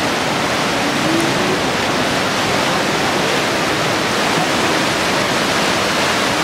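Fast river water pouring through the openings of a needle-dam weir and churning into whitewater below it: a loud, steady rush.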